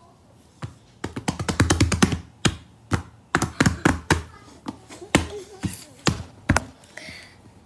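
A run of rapid taps and knocks close to the microphone, from hands bumping and handling the phone that is recording: quick, tight taps for about a second, then scattered single knocks.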